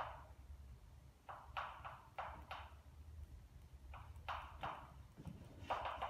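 Chalk writing on a blackboard: short strokes and taps, in groups of three or four with pauses between them.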